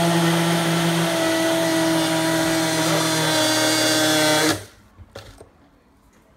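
Single-serve personal blender running with a steady motor whir, then cutting off suddenly about four and a half seconds in; a few faint knocks follow.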